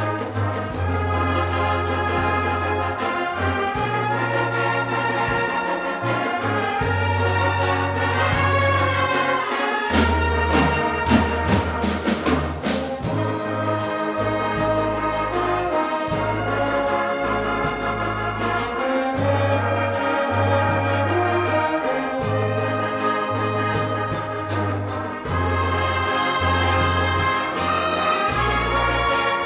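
Andalusian agrupación musical, a brass and percussion band, playing a film-music arrangement live. Held brass chords sit over a bass line that moves note by note, with a burst of drums and cymbals about ten seconds in.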